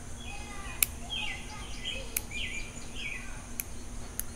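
Small bonsai pruning shears snipping dead stubs off a Chinese elm: four sharp clicks, the first the loudest. A bird chirps in short rising and falling notes in the middle.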